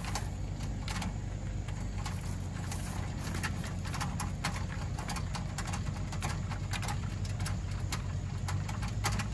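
Hand-cranked trailer tongue jack being wound down, its crank and gears giving many short irregular clicks over a steady low hum.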